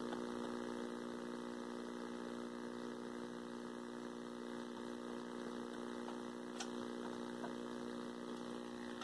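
Steady electrical mains hum: a low buzz of a few even tones held without change, over a faint hiss, from powered-up electronics. There is a light click about six and a half seconds in.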